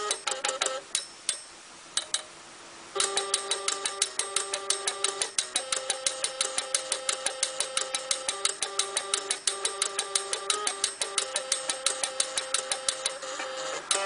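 Stepper motors playing a tune: buzzy pitched notes that step from one pitch to the next over a fast, regular ticking. The sound drops to a quieter lull about a second in and picks up again around three seconds in.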